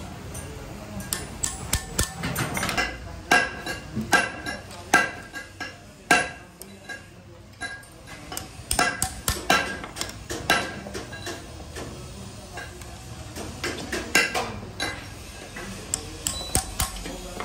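Hammer striking a punch to set rivets in a clutch disc's friction lining over a steel block: sharp, ringing metal-on-metal taps in quick irregular clusters, with short pauses between rivets.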